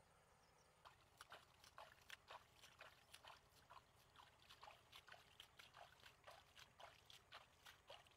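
Faint, quick water splashes, about three or four a second, as a woven basket of fish is dipped and swished in a river to rinse it.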